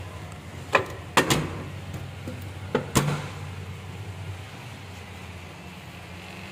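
Aluminium awning window sash being moved and shut. It gives a few sharp clicks and knocks in two pairs, about a second in and about three seconds in, over a steady low hum.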